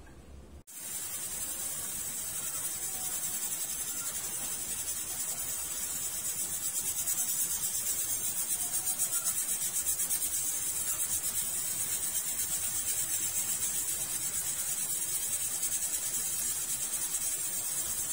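Stovetop pressure cooker venting steam through its valve: a steady high hiss with a fast flutter in it, starting about a second in.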